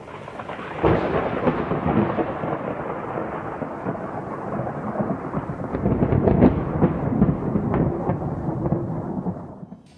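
Thunderstorm sound effect: rumbling, crackling thunder with rain that comes in suddenly, swells to its loudest about six seconds in, and fades away near the end.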